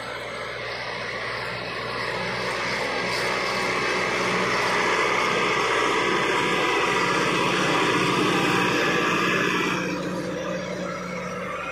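Massey Ferguson 385 tractor's diesel engine running steadily under load as it pulls a heavy disc harrow. It grows louder as the tractor passes close, then drops off about ten seconds in.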